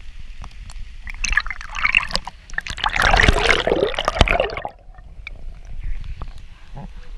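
River water splashing and gurgling around a camera as it is dipped under the surface, with many small crackles, loudest around three to four seconds in. It drops off suddenly at about four and a half seconds to a quieter, muffled sound.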